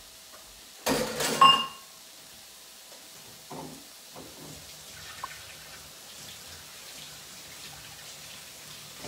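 Ground-beef patties sizzling quietly as they start to brown in a slow cooker's pot. A short, loud burst of running tap water comes about a second in.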